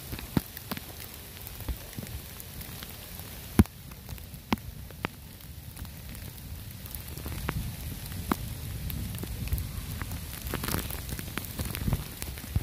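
Scattered sharp clicks and crackles at irregular spacing, the loudest about three and a half seconds in, over a faint low rumble that swells a little in the second half.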